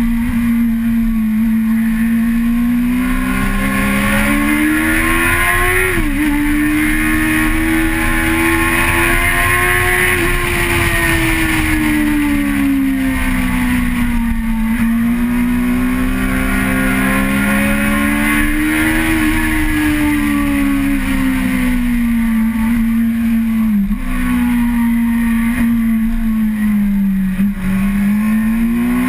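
Vehicle engine heard from on board, its pitch climbing and easing off over several seconds at a time, with sudden drops in pitch about six seconds in and twice near the end, like gear changes. Steady wind and road noise run underneath.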